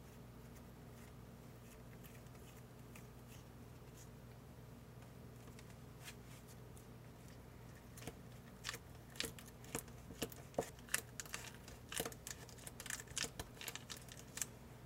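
Faint room tone with a low hum for the first half. From about eight seconds in comes a run of sharp, irregular crinkles and clicks from the thin plastic packet of a Popin Cookin candy kit as fingers press and spread candy dough flat on it.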